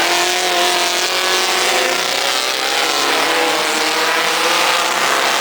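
Modified 1600-class race car engines running hard at high revs, their pitch drifting slightly.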